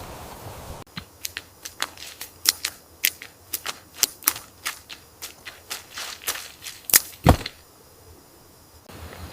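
An irregular run of sharp clicks and taps, about two to three a second, with two louder knocks about seven seconds in. The sound cuts in suddenly just under a second in and stops a little before the end.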